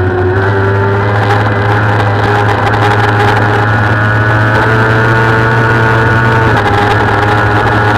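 Kawasaki ZX-6R's inline-four engine running hard at high revs under sustained throttle, its pitch holding nearly steady with a slight rise and a brief dip about two-thirds of the way through.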